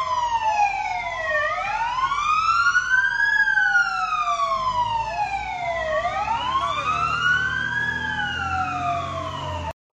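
Fire engine sirens wailing, two of them slowly rising and falling out of step with each other, over the low rumble of the trucks' engines. The sound cuts off abruptly near the end.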